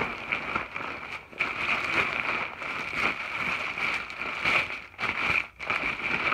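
Plastic trash compactor bag and a nylon down jacket rustling and crinkling as the jacket is stuffed and pushed down into the bag. There is a brief pause near the end.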